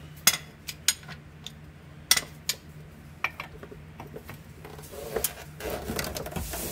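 Metal hand tools clinking as a socket wrench is set on and worked against a pitch stop engine mount bolt: a handful of sharp clinks over the first few seconds, then a rattling, scraping stretch near the end.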